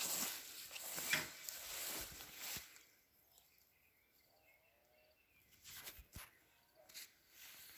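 Rustling and crunching in grass or undergrowth with a few sharp snaps for about three seconds, then quiet outdoor ambience with faint bird chirps and a few more light clicks.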